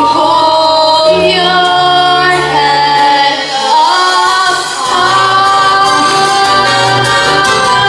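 A female voice singing long held notes over musical accompaniment, the melody gliding upward a little before four seconds in.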